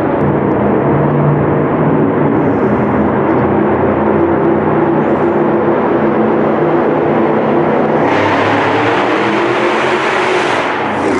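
Loud car engine and exhaust running under load, holding a fairly steady pitch. About eight seconds in, a loud rushing noise joins it and falls away near the end.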